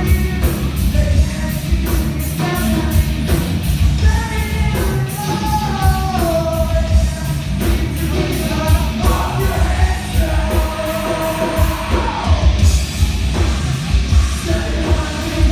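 Live rock band playing a song, a singer's voice carried over a loud, steady full-band backing.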